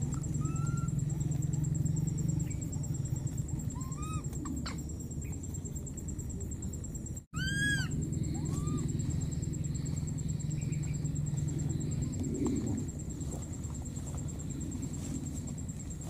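Baby macaque giving short arched coo calls, four in all, the loudest a little before halfway, over a steady low rumble and a thin high-pitched whine.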